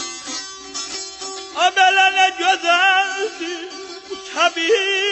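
Azerbaijani ashiq music: the saz is plucked and strummed, then a loud, wavering sustained melody comes in about one and a half seconds in and again near the end, over a steady drone.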